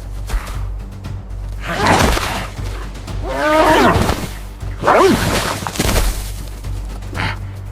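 Animated-film animal cries over a low, steady music bed: three loud calls at about two, three and a half, and five seconds in, the later two sliding down in pitch.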